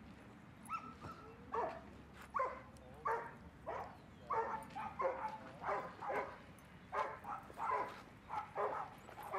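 A dog giving a string of short yips and barks, about two a second, starting about a second in, during play with other dogs.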